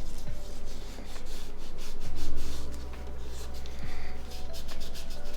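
Irregular rubbing and scratching from hands working on small plastic phone parts, over soft background music with a steady bass line.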